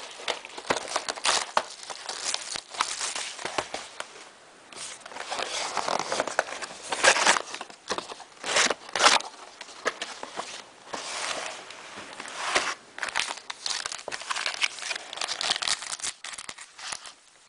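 Plastic wrapping crinkling and tearing, irregular rustles and crackles, as a sealed box of trading cards and its packs are unwrapped by hand.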